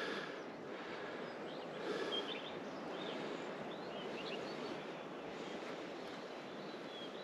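Open-air countryside ambience: a steady hiss of wind with scattered short bird chirps.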